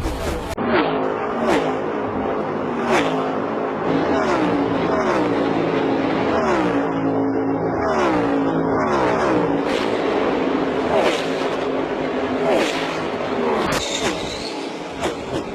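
NASCAR Next Gen stock cars' V8 engines at racing speed, one car after another going past, each engine note falling in pitch as it goes by.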